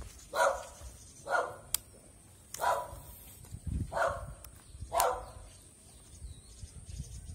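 A dog barking: five single barks, roughly one a second, stopping about five seconds in.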